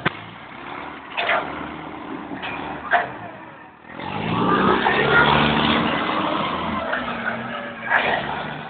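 Forklift engine running, then revving up and holding high revs for a few seconds as the forklift drives off. A few sharp knocks are heard along the way.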